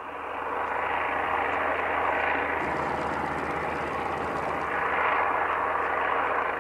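Propeller-driven fighter plane flying overhead, its piston engine giving a steady rushing drone that swells over about the first second and then holds.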